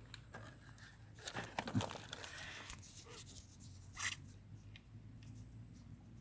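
Faint rustling and handling noises with scattered sharp clicks, busiest between about one and three seconds in, and one more sharp click about four seconds in, over a low steady hum.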